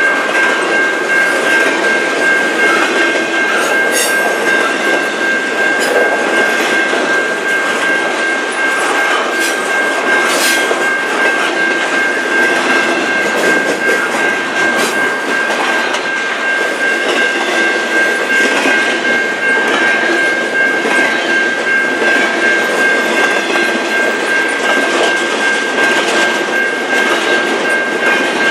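Double-stack intermodal well cars rolling past close by: a steady rumble of wheels on rail with clickety-clack and occasional sharp clanks. A thin, steady high-pitched tone rings on over the rumble.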